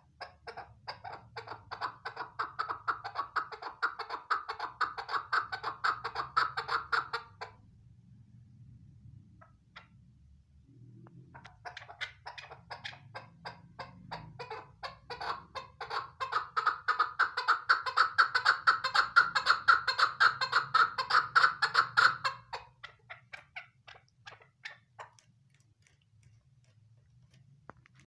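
Female chukar partridge calling in two long runs of rapid, chattering notes, the second run longer and louder, trailing off near the end.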